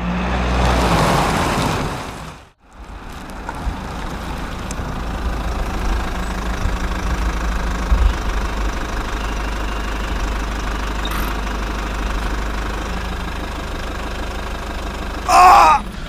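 A motor vehicle engine running with a steady low rumble, after a louder swell that cuts off about two and a half seconds in. A short voice sound comes near the end.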